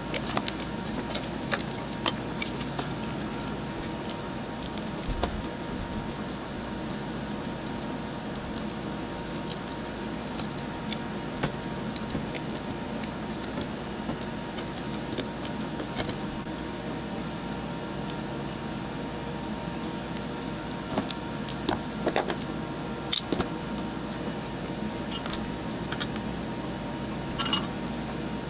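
Scattered small clicks and taps, such as small parts and tools being handled during a lightsaber hilt teardown, over a steady background hum. The taps come in a small cluster a little past two-thirds of the way through.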